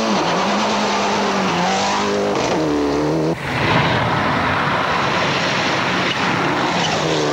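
Group A Mitsubishi Lancer Evolution 6.5 rally car's turbocharged four-cylinder engine at full throttle, its note rising and falling through gear changes, with a steady hiss of tyres on gravel. An abrupt cut about three and a half seconds in joins two separate passes.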